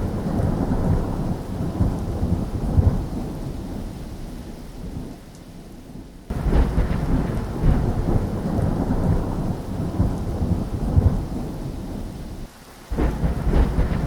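Rolling thunder over steady rain. Each rumble fades over several seconds, then a new one cuts in suddenly, twice, about six and a half seconds apart.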